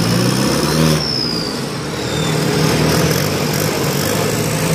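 Engine of a drag-racing pickup truck idling with a steady, even rumble while the truck creeps forward on its drag slicks, with a faint falling whistle about a second in.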